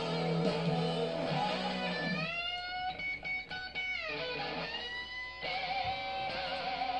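Electric guitar lead over a rock band backing in an instrumental break of a Southern rock song, its notes sliding up in pitch several times.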